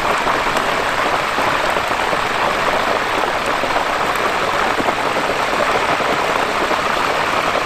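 Hot oil in a propane turkey fryer sizzling and bubbling hard as a turkey is lowered slowly into it, a loud steady hiss. The oil is very hot, so the bird goes in a little at a time.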